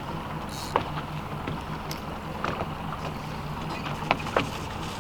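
Boat motor running steadily at low trolling speed with an even low pulse, with scattered light clicks and knocks of handling aboard.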